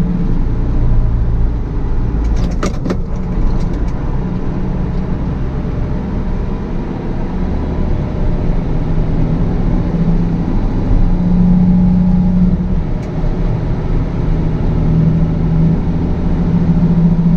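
Tractor engine running steadily on the road while hauling a load of wheat, heard from inside the cab, its pitch shifting slightly. A brief rattle comes about two and a half seconds in.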